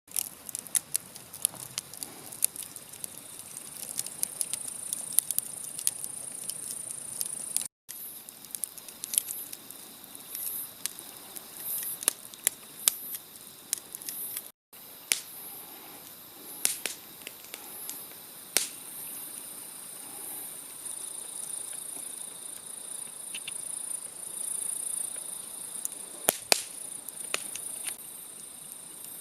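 Insects chirring in a steady high-pitched drone, with irregular sharp crackles and pops of a wood fire burning in a fire pit.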